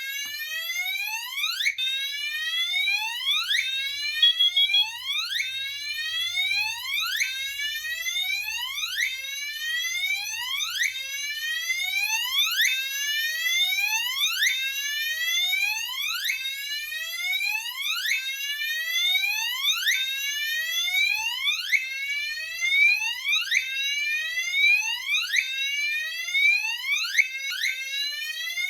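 Fire alarm notification appliances sounding a whoop tone: a rising sweep repeated a little more than once a second, set off by a carbon monoxide detector test. A brief steady high beep sounds about four seconds in.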